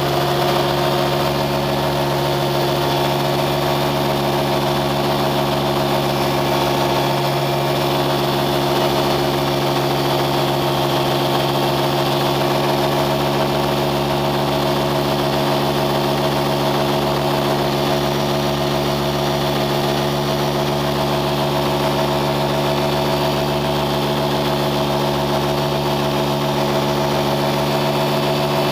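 An engine running at a constant speed: a steady hum that neither rises nor falls in pitch.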